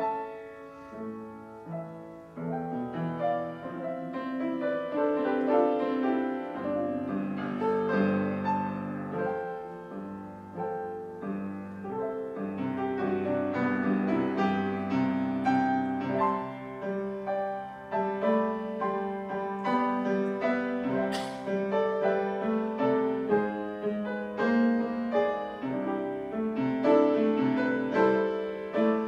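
Solo grand piano playing a continuous instrumental piece of flowing melody and chords, with one brief sharp click about two-thirds of the way in.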